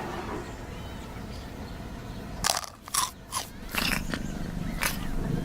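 Something crunchy being chewed: a quiet stretch, then about half a dozen sharp crunches from about two and a half seconds in.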